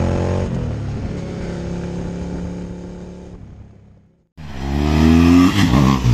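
Motorcycle engine running at steady revs, fading away about four seconds in. After a short gap, a motorcycle engine rises in pitch as it accelerates, then holds.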